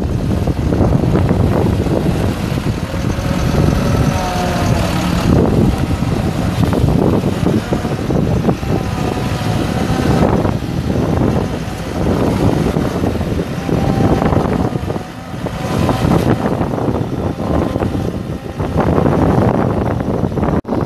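Mitsubishi six-cylinder diesel engine of a Morooka MST-800E tracked dump carrier running under load as the machine drives and turns on gravel, its tracks rolling over the stones. The level rises and falls as it manoeuvres.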